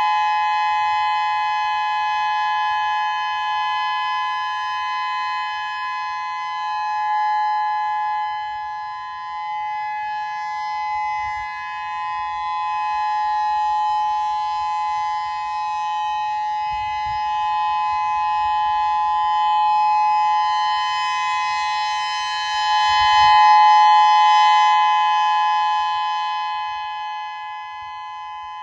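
Outdoor early warning siren sounding a steady two-note tone for a siren system test. It swells and fades in loudness, peaks a little past two-thirds through, then eases off near the end.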